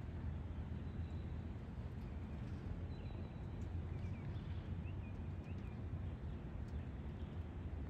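Steady low outdoor rumble, like wind on the microphone or distant traffic, with a few faint bird chirps about three to five seconds in.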